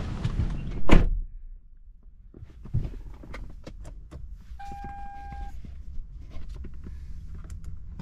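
A car door shuts with a thump about a second in, cutting off the outside noise. Small clicks and handling sounds follow inside the car, then a single electronic chime from the car, one steady tone about a second long, near the middle.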